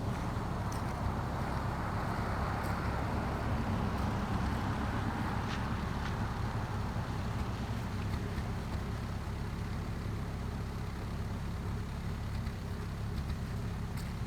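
Radio-controlled hydrofoil boat running on the water, its motor and spray noise fading as it moves away, over a steady low rumble.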